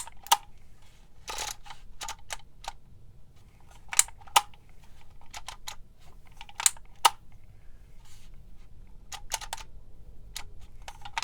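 Handheld dial label maker being worked: sharp plastic clicks, several in pairs about half a second apart every few seconds, with fainter clicks between, as the letter dial is turned and letters are entered.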